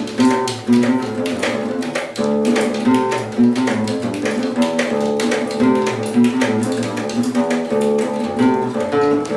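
A band song led by a nylon-string classical guitar, with keyboard and electric guitar, played to a steady beat.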